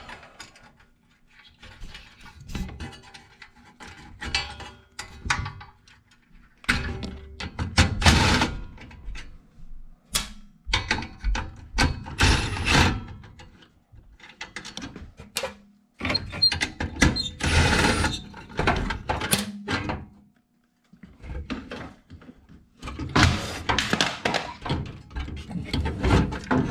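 Irregular metal clunks, rattles and scrapes, with gaps, as a furnace's White-Rodgers gas control valve is disconnected by hand, unfastened and lifted out. A faint steady hum runs underneath.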